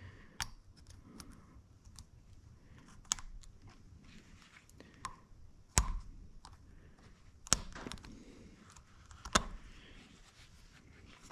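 Small screwdriver and a steel wrist-pin spiral lock clicking and scraping against a piston's pin bore as the lock is worked down into its groove: a handful of sharp light clicks a couple of seconds apart, with faint rubbing in between.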